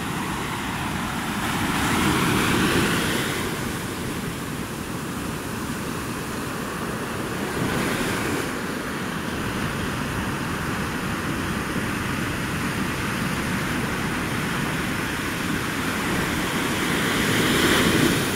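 Ocean surf breaking and washing up a sandy beach, a steady rush that swells louder about two seconds in, again around eight seconds, and near the end as waves come in.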